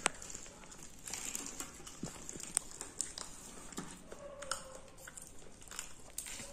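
Crisp fried puri being torn by hand on a stainless steel plate: irregular crackles and sharp clicks of fingers and bread tapping against the steel.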